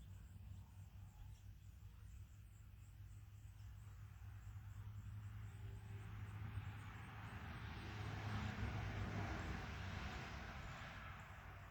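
A vehicle passing: a faint rush of noise that swells about halfway through, peaks, and fades again near the end, over a steady low hum.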